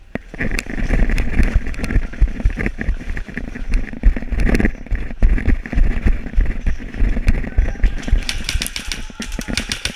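Knocking, rattling and rumbling handling noise on a helmet-mounted action camera as an airsoft player moves. About eight seconds in, a fast, even string of sharp clicks begins: an airsoft rifle firing in rapid bursts.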